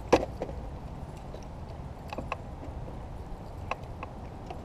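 Handling noises in a small fishing boat while a caught fish is unhooked: a few sharp clicks and knocks, the loudest just after the start, over a steady low rumble.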